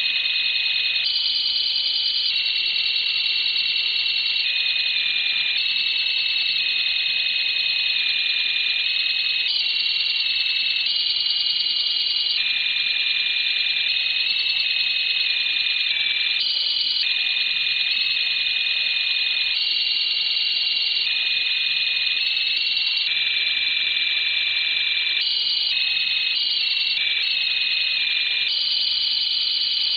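Shortwave radio digital data signal received by a web SDR on 13.565 MHz: a cluster of several high, steady tones that jumps up and down in pitch as a block every second or so, over a faint receiver hiss.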